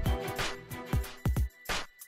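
Background music with a drum beat of repeated kick hits over held tones, dropping out briefly near the end.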